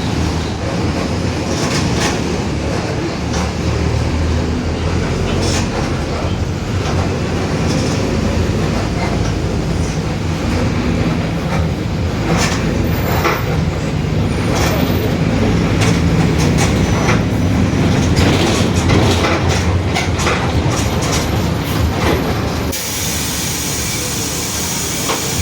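Mercedes-Benz OF-1721 city bus running under way, heard from on board: diesel engine and drivetrain with the differential growling, and scattered rattles. The sound swells through the middle and drops off near the end.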